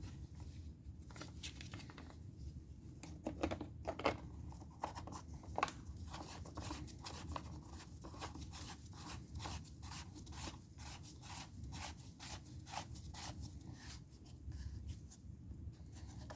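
Small clicks and scrapes of hand work on an electric chainsaw's bar, chain and side cover as they are fitted and tightened, with a run of quick, fairly even clicks of about two to three a second through the middle.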